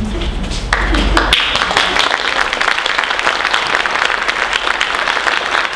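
Theatre audience applauding; the clapping starts about a second in and quickly swells to full, steady applause.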